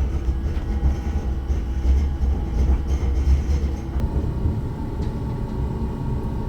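Moving train, heard from a passenger's seat: a steady low rumble of the carriage rolling along the track with a faint steady hum, the rumble easing a little about four seconds in.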